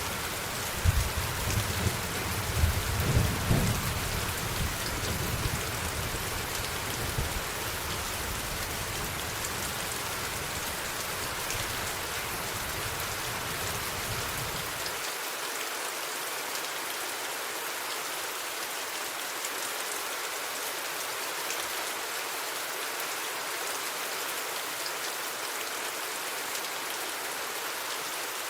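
Steady rain falling, with a low thunder rumble that peaks in the first few seconds and fades. About halfway through the low rumble cuts off suddenly, leaving only the even hiss of the rain.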